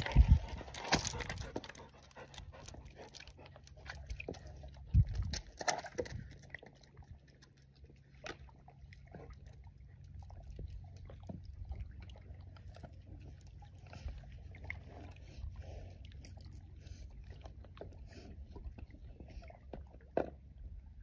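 Boots stepping on loose shoreline rocks close by, with loud knocks and scrapes of stone in the first second or two and again about five seconds in. Fainter scattered clicks of stones follow over a low steady rumble.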